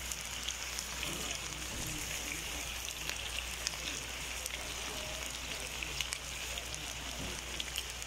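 Large pan of meat and vegetables sizzling steadily over the heat, a constant frying hiss with small scattered crackles.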